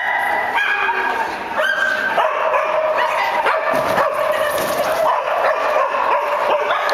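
Pyrenean Shepherd giving high-pitched yips and barks one after another, without pause, while running an agility course.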